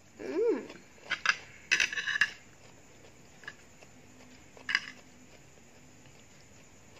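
Metal spoon clinking and scraping against a plate as food is scooped up: a quick run of clinks between about one and two seconds in, then single clinks later. A short hummed 'mm' near the start.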